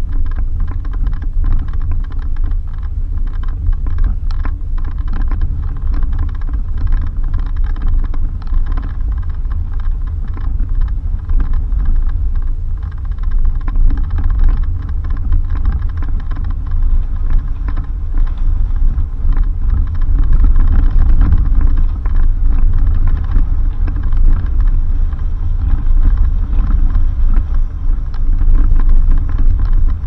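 Suzuki Jimny driving on a dirt road: a steady low rumble from the engine and the road, with frequent short knocks and rattles from the bumps.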